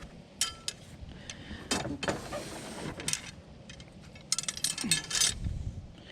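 Metal objects knocking and clinking as they are handled, one strike ringing briefly, then a quick rattling run of clinks about four seconds in.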